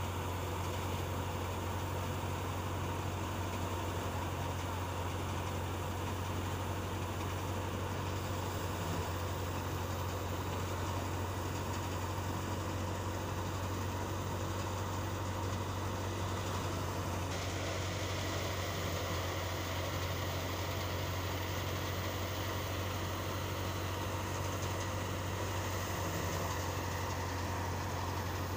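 Tractor-driven thresher running steadily while crop stalks are fed into it: the Al-Ghazi tractor's diesel engine and the thresher's drum make a continuous low drone with a steady hum.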